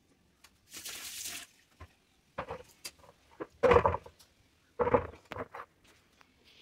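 Kitchen handling noise at a wet counter: a short hiss about a second in, then scattered clicks and two loud knocks about a second apart.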